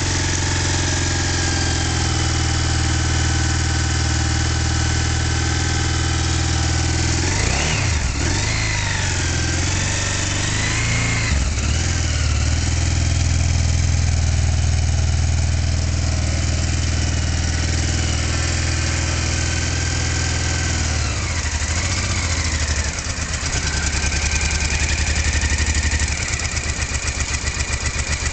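Honda XRV750 Africa Twin's V-twin engine idling steadily, revved briefly twice about a third of the way in and once more about three quarters through.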